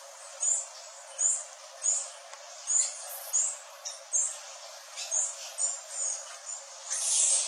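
A songbird repeating a short, high chirping note about every two-thirds of a second, with a longer, louder note near the end.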